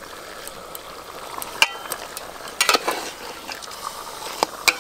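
Mutton frying in an aluminium pot with a steady sizzle as the meat starts to release its water. A metal spatula scrapes and clinks against the pot several times as ginger-garlic paste is stirred in, and the sharpest clinks come near the end.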